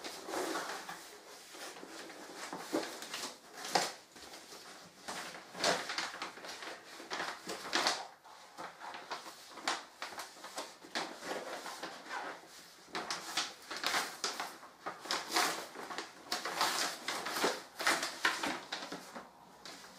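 Paper and cardboard packaging being handled and unpacked: irregular rustling, crinkling and scraping of card and paper, some strokes sharper and louder than others.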